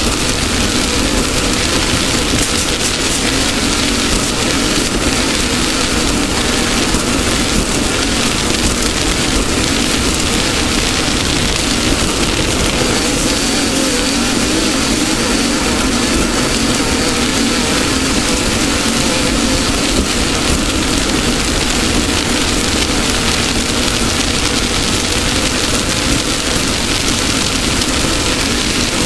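Off-road race car's engine running steadily under load, with a loud, even rushing noise over it.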